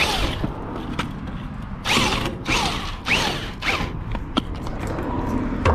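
A corded drill turns a 100 mm earth auger into gravelly soil. The motor runs with several louder, grinding surges about half a second apart in the middle, its pitch sweeping up and down as the auger bites and frees.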